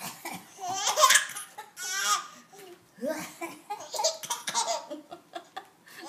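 A baby laughing in repeated bursts of giggles and belly laughs.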